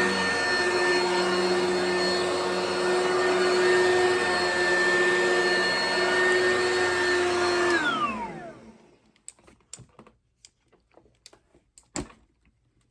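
Vacuum cleaner running steadily, then switched off about eight seconds in, its pitch falling as the motor spins down. A few faint clicks and a sharper knock follow.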